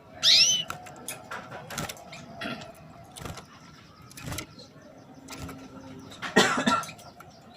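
Female canary giving two loud chirps, a sharp rising call just after the start and another near the end, the "cuit cuit" calling of a hen canary. Scattered short clicks and knocks fall between the calls.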